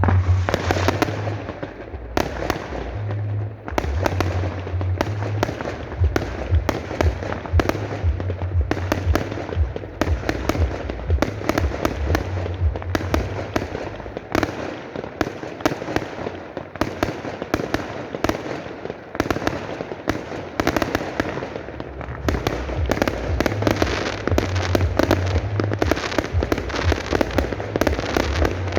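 Fireworks display: a dense, continuous barrage of bangs and crackling from exploding shells, with deep booms underneath.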